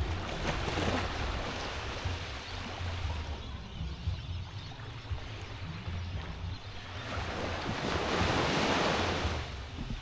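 Small waves washing up on the sand at the water's edge, a wash swelling near the start and again, louder, about eight seconds in, over a steady low rumble of wind on the microphone.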